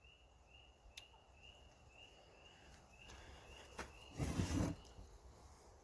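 Faint insect chirping, a short high chirp repeated about twice a second, with a single click about a second in and a brief scuffing noise, the loudest sound, a little after four seconds in.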